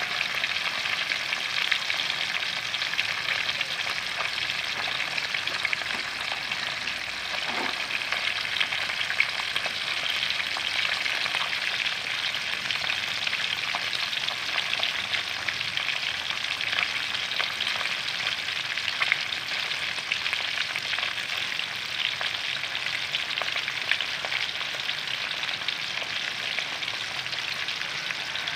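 Whole yellowtail scad deep-frying in hot oil in a wok: a steady sizzle with many small crackles and pops. The fish are still frying on their first side.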